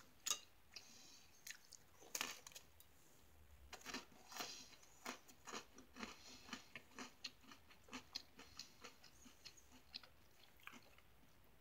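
Close, faint chewing of a crunchy cracker topped with cheese spread: a couple of sharper crunches in the first few seconds, then a run of small, irregular crackling chews, two or three a second.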